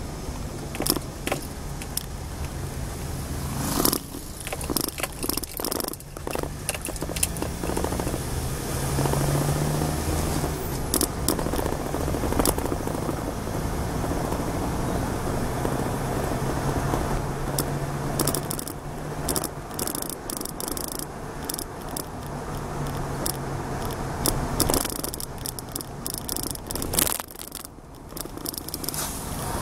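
Car engine running and tyre and road noise heard from inside the cabin while driving, with a low hum that is strongest in the middle and frequent clicks and knocks of rattles and bumps.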